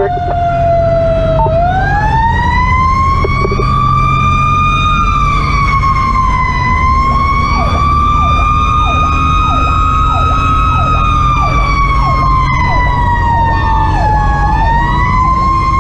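Fire engine's Federal Q2B mechanical siren winding up about a second and a half in, then wailing with its pitch slowly rising and falling. From about seven seconds in, a second siren adds a rapid falling sweep about twice a second. Underneath runs the low drone of the truck's Detroit Series 60 diesel, heard from inside the cab.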